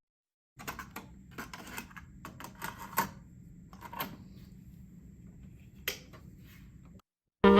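A series of irregular light clicks and taps over a faint low hum, the sharpest click about three seconds in; the clicks stop about a second before a saxophone jazz track comes back in.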